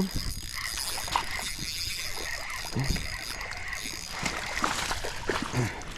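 Fishing reel cranked to bring in a hooked bass: a whirring, clicking retrieve, with water splashing from the fish.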